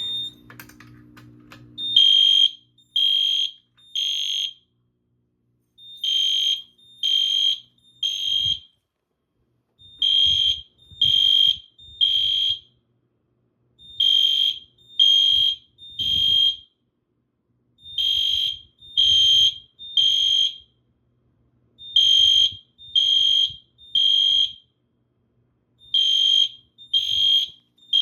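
Fire alarm horns on an EST IO64 fire alarm system sounding in alarm after a pull station is pulled: a high-pitched tone in groups of three short blasts, repeating about every four seconds and starting about two seconds in. This is the temporal-three evacuation pattern.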